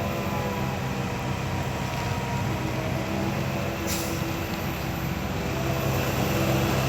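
Komatsu PC160LC hydraulic excavator's diesel engine running steadily as it works, with a short sharp click about four seconds in.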